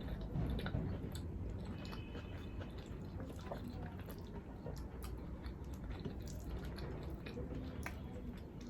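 A person chewing a mouthful of food close to the microphone, with scattered small wet mouth clicks.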